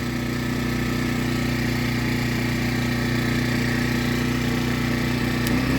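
Harbor Freight Predator 1400 inverter generator running steadily with no load in eco mode. Near the end there is a click and the engine pitch rises as it speeds up.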